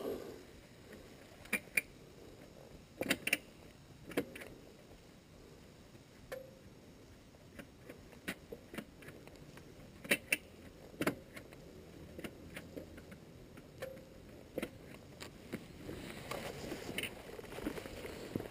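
Quiet handling noises around a fallen motorcycle: scattered sharp clicks and knocks, then rustling and scuffing that builds near the end as the rider grips the handlebars to lift the bike.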